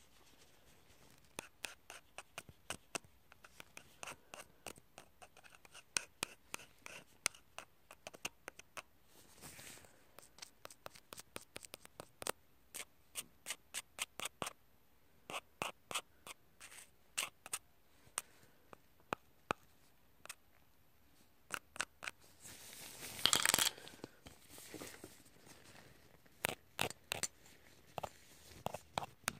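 Small eyebrow scissors snipping close to the microphone: soft, sharp snips in irregular runs of a few a second. Near the end comes a brief, louder scraping rustle.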